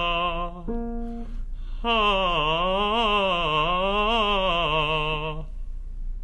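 A singer vocalizing a wordless exercise line on a vowel. The pitch rocks up and down in quick groups, then settles on a held low note. About a second in, a single steady instrument note sounds briefly before the singing starts again.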